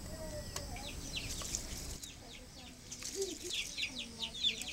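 Birds chirping: a run of quick, high chirps that each slide downward, several a second, getting busier in the second half, with a faint low call about three seconds in.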